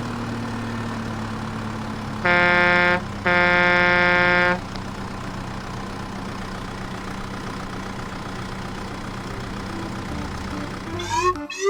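Cartoon vehicle sound effect: an engine hums steadily while a horn honks twice, a short blast followed by a longer one. Quick rising whistle-like glides begin near the end.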